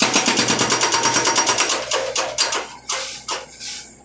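BTI hydraulic breaker on an excavator hammering concrete: a fast, even rattle of about ten blows a second for roughly two seconds, then a few irregular blows that die away.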